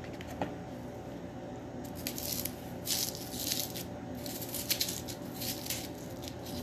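Knife peeling the papery outer skin off a red onion: a few short, crisp scraping and tearing rasps, starting about two seconds in.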